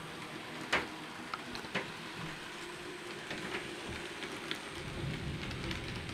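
Graham Farish N gauge Class 66 model locomotive and its freight wagons running on the layout's track: a steady crackling rattle of small wheels on the rails, with scattered sharp clicks, the two loudest about a second apart near the start.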